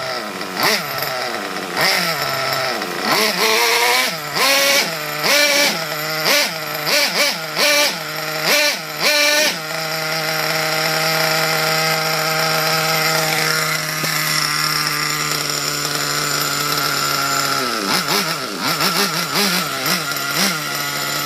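Redcat Earthquake 3.5's small two-stroke nitro engine running, revved in a string of quick throttle blips, then held at a steady fast idle for about eight seconds before being blipped again near the end.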